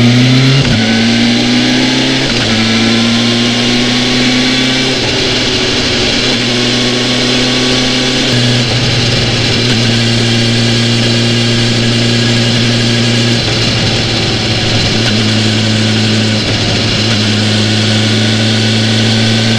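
BMW S1000XR's inline-four engine pulling away, rising in pitch through two quick upshifts in the first couple of seconds, then cruising at steady revs with a few brief dips in pitch.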